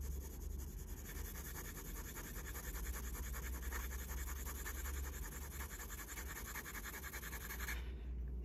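Graphite pencil shading on paper: fast, even back-and-forth strokes scratching across the sheet, which stop shortly before the end.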